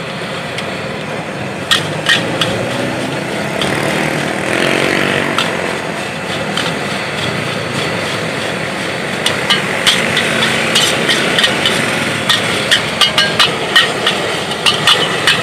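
Cooking utensils clanking: a fast, irregular run of sharp metallic knocks that starts about two-thirds of the way in, over a steady rushing noise.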